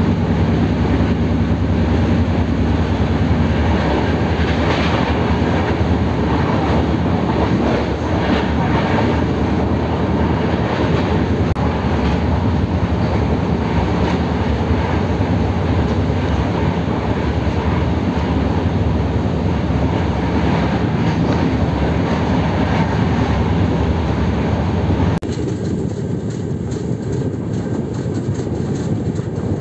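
Running noise of a passenger train's LHB coaches on the move: steady rumble of wheels on rails. About 25 seconds in, the noise drops suddenly to a quieter, duller level.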